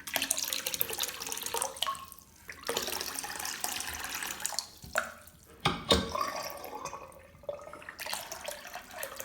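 Water running from a bathroom basin mixer tap into the sink, shut off and turned back on several times, with a sharp knock a little before the six-second mark: the tap is being tested to see that its newly replaced cartridge shuts the flow off and turns it on properly.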